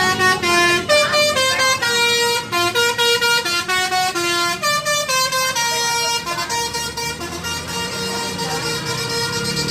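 Tour bus's basuri telolet musical horn playing a tune of stepped notes: quick note changes at first, then longer held notes in the second half.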